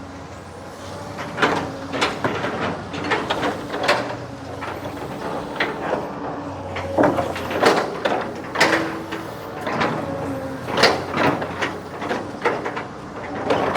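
Long-arm excavator running with its diesel engine holding a steady drone, while the arm and bucket work and give off a string of irregular knocks.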